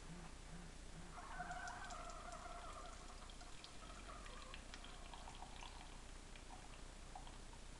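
Keurig coffee maker brewing, coffee pouring into the cup with small drips and splashes. A steady whine from the machine sounds for about three seconds in the first half.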